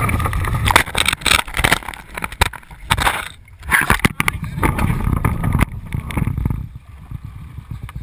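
Irregular knocks, bumps and scraping of a canoe being handled and tipped down at the water's edge, picked up through the hull by a camera fixed to its bow, over a low rumble. The clatter eases for a moment about three and a half seconds in.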